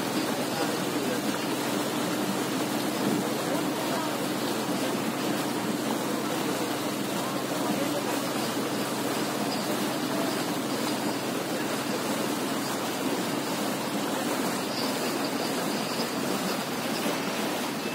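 Motorboat under way: a steady engine drone under an even rushing noise of water and air.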